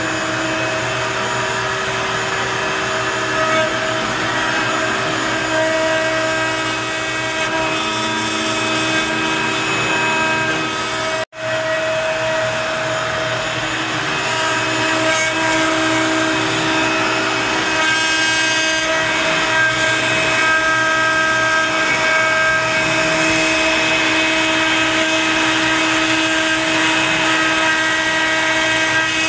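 Onefinity CNC machine carving wood with a 60-degree V-bit in a Makita trim router: the router's steady motor whine over the hiss of the dust-extraction suction drawing through the dust boot. The sound drops out for an instant about eleven seconds in.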